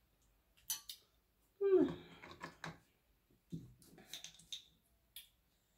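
Close-up eating sounds: clicks and clacks of shellfish shells being handled and pulled apart. About one and a half seconds in comes a short wordless vocal sound that falls in pitch, the loudest thing heard.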